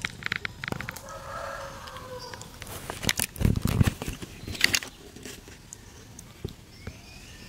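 A rooster crowing once, starting about a second in, in one drawn-out call that drops in pitch at the end. Around the middle come a few sharp clicks and a short low rumble.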